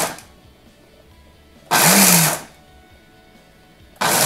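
Blender motor running in short bursts with pauses between, each burst spinning up and winding down as it dry-grinds roasted masala into a coarse powder. One burst cuts off just after the start, another lasts under a second about two seconds in, and a third starts near the end.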